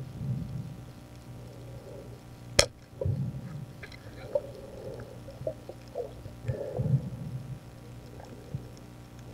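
Muffled underwater water sounds as a diver moves: low sloshing and bubbling surges a few times, with one sharp click about two and a half seconds in.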